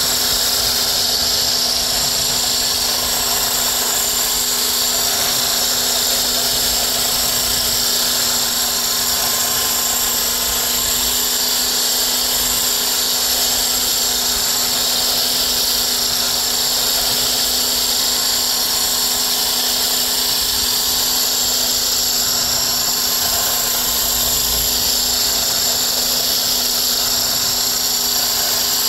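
Electric hand blender with a whisk attachment running continuously at one steady speed, whisking pancake batter: a steady, high motor whine.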